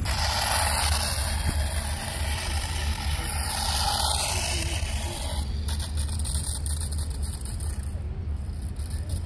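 Remote-control toy motorcycle driving on a rubber court, its small electric motor and tyres whirring loudest for the first five seconds or so as it passes close by, then fading as it moves off. A steady low rumble runs underneath.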